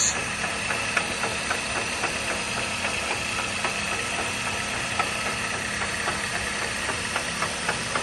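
Dodge Caliber engine idling, with a sharp, irregular click-clack several times a second over the steady running. The clicking is taken to be a front CV axle, with some doubt.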